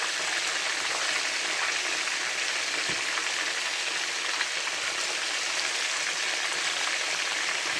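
Chicken pieces deep-frying in hot oil: a steady, even sizzle with faint crackles.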